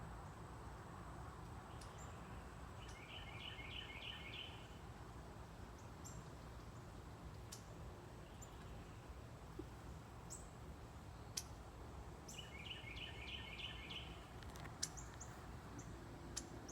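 Small bird calling twice, each call a quick run of about six chirps, with scattered short high chips between, over steady faint outdoor background noise.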